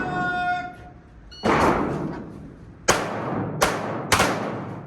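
Pistol shots echoing in an indoor range: one shot about a second and a half in, then three more near the end, each followed by a reverberant decay. A brief ringing tone sounds at the very start.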